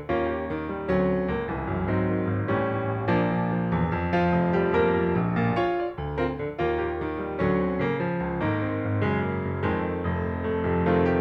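Background instrumental music: a keyboard melody of separate notes struck one after another.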